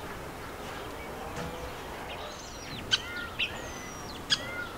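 Birds chirping over a steady outdoor background: short falling whistles and a few sharp chips in the second half.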